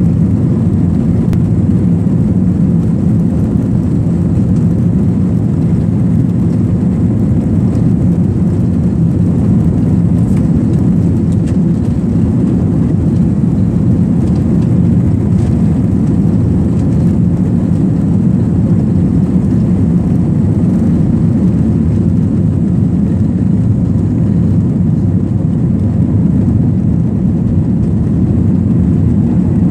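Jet airliner's engines at takeoff thrust heard from inside the passenger cabin: a steady low rumble through the takeoff roll and into the climb.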